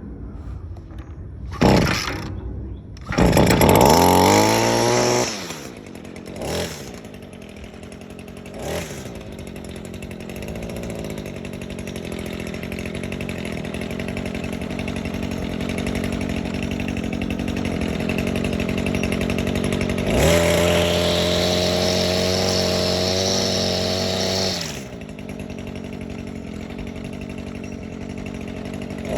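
Echo SRM-225 string trimmer's small two-stroke engine starting. It fires in short bursts, one loud rev that winds down, then settles into a steady idle. About two-thirds of the way through it is held at high revs for about four seconds, then drops back to idle.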